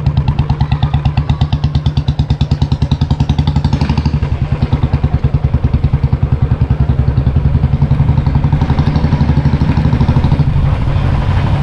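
Motorcycle engine running while riding, with a rapid, even exhaust beat.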